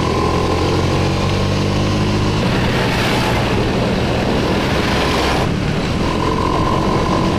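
Honda automatic scooter's single-cylinder engine running steadily at cruising speed, with wind rushing over the microphone that swells in the middle.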